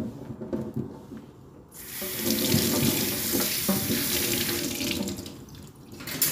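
Kitchen tap running into a stainless steel sink as yardlong beans are rinsed under it by hand. The water comes on just under two seconds in, splashing over the beans, and fades out about five and a half seconds in, followed by a single sharp knock near the end.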